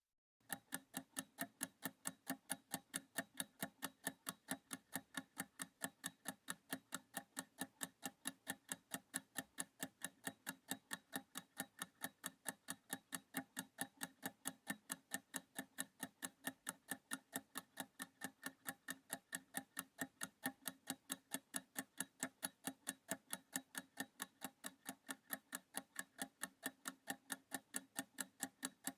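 Clock-ticking sound effect used as a countdown timer, ticking evenly for the 30 seconds given to read the words aloud. It starts about half a second in.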